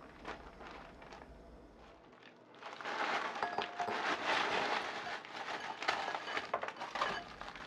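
Frost-coated frozen fruit chunks being tipped out of a plastic bag into a glass bowl. After a quiet start, a dense run of clinks, clatter and plastic crinkling begins about two and a half seconds in and goes on for several seconds.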